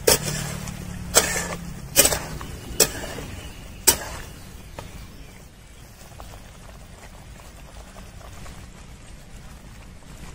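Metal spatula knocking against a steel kadai while stirring curry: five sharp clanks in the first four seconds, then only a low steady background.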